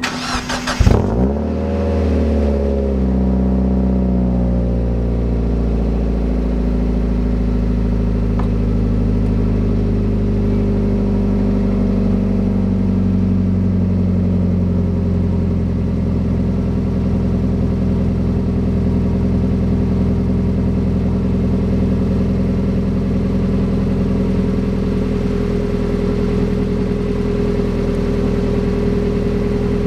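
2002 Mazda Miata's 1.8-litre four-cylinder, its muffler cut off for a straight pipe with a dual tip, with the resonator and catalytic converter still in place, starting cold. It catches about a second in with a brief flare, then settles into a steady, loud idle whose pitch eases down over the next few seconds before holding steady.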